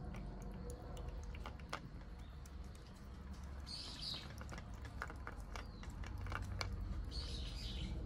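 A cat eating from a small plastic bowl: irregular wet chewing and lapping clicks. A bird chirps briefly twice, about four and seven seconds in.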